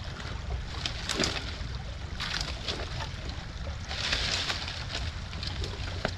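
Dry leaf litter and branches crunching and rustling in irregular bursts as someone steps through them and handles dead branches, loudest about four seconds in. Under it, a steady low rumble of wind on the microphone.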